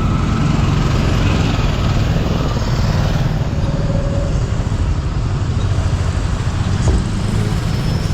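Steady road vehicle noise with a continuous deep rumble, and a single brief knock about seven seconds in.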